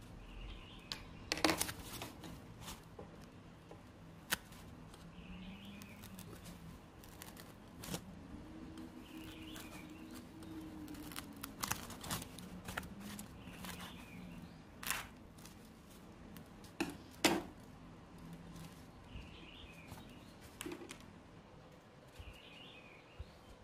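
Scissors snipping through a thin foam sheet in short, irregular cuts, a few of them sharp and louder.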